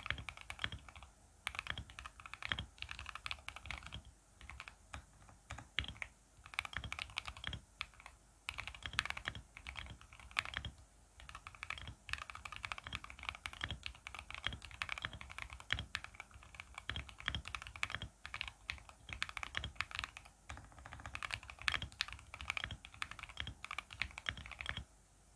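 Fast, continuous typing on a custom mechanical keyboard with lubed Jwick Black linear switches and ASA-profile keycaps in an acrylic gasket-mount case: a dense patter of key clicks with short pauses between bursts, stopping just before the end.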